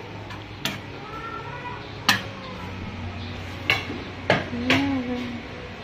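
Five sharp metal clinks against a stainless steel cooking pot, spread over the few seconds with the loudest about two and four seconds in, over a low steady hum; faint voices are heard between them.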